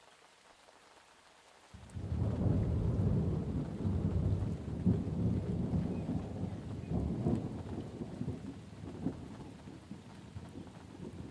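Light rain falling steadily. About two seconds in, a roll of thunder breaks in suddenly and rumbles low, then slowly dies away over the following seconds.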